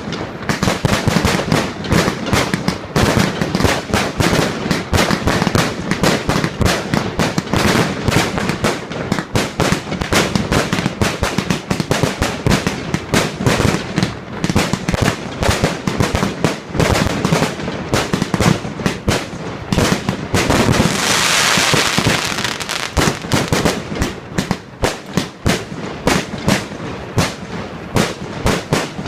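Fireworks going off in rapid, continuous bangs and crackles, with a stretch of loud hissing about three-quarters of the way through.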